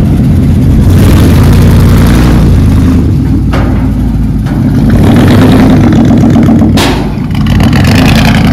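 OBS pickup truck's engine running loud, its level swelling and dropping a few times, with a decent exhaust leak.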